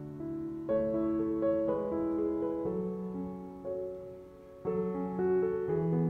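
Background piano music: chords struck about a second in and again near five seconds in, their notes ringing on between strikes.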